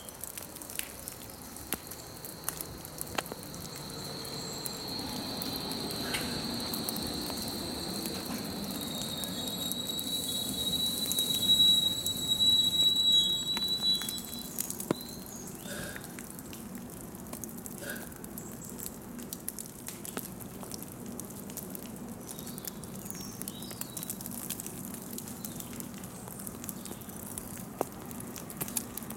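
A Hamburg U-Bahn train approaching and crossing an elevated bridge: a steady high whine and a low rumble build to their loudest about twelve seconds in, then fade as the train moves off. Light irregular pattering ticks run underneath, from thawing snow dripping.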